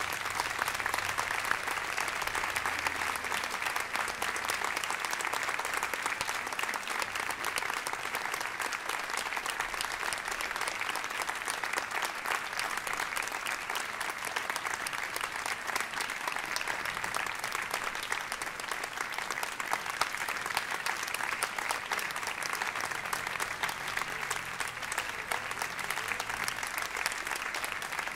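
Audience applauding, a dense, steady clapping of many hands that starts right after the last chord of the music.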